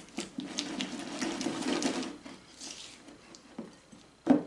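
A fork and a silicone spatula stirring and mashing softened herb butter in a ceramic bowl: soft scraping with small ticks for about two seconds, then quieter, with a sharp clink near the end.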